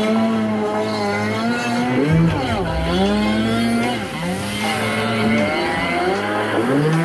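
Kawasaki stand-up jet ski's two-stroke engine revving, its pitch rising and falling several times as the rider throttles on and off through turns.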